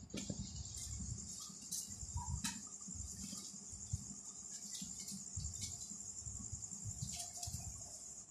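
A steady, high-pitched pulsing trill, like an insect such as a cricket, with soft bumps and a few clicks from handling.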